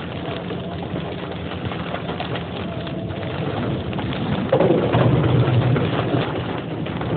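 Steady rain noise with fine ticking, getting louder about four and a half seconds in, where a short wavering call is also heard.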